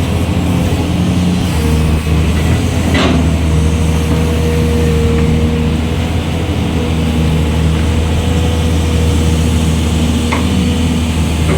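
Excavator's diesel engine running steadily, with a sharp knock about three seconds in and another near the end.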